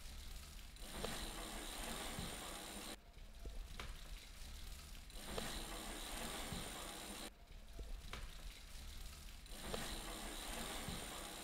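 Bicycle freewheel ticking fast as the rider coasts, in stretches of two to four seconds with short breaks between them.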